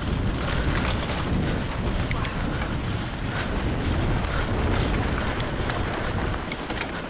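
Wind buffeting the microphone, a steady low rumble with scattered small clicks and rattles over it.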